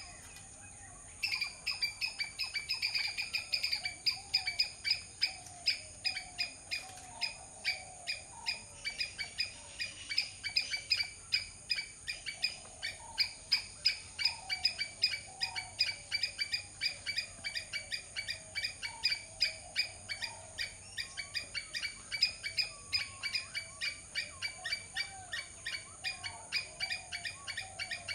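Squirrel chirping in a fast, steady series of short, sharp calls, about four a second, with a brief pause about a second in. Softer warbling runs lower underneath.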